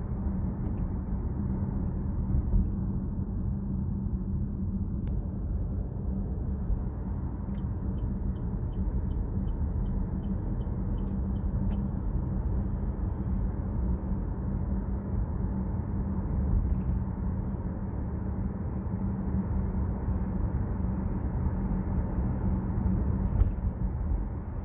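Steady road and engine rumble heard inside the cabin of a moving Chevrolet Trax crossover. In the middle a run of quick, even ticks lasts about four seconds: the turn-signal indicator, set for the coming U-turn. A single sharp click comes near the end.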